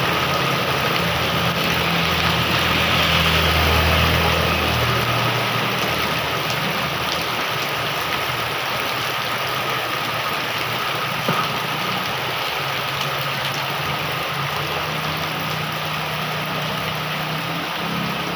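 Heavy rain falling steadily. A vehicle engine hums under it for the first five seconds, then fades, and the hum comes back near the end; a single sharp knock sounds about eleven seconds in.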